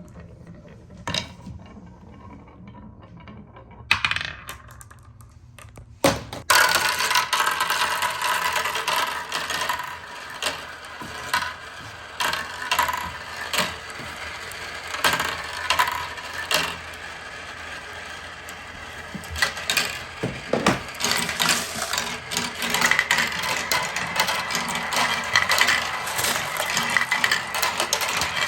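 Glass marbles rolling and clattering down wooden marble-run slopes. At first there are only a few scattered clicks. About six seconds in, a dense, continuous rattle starts as many marbles roll and knock against the wooden track.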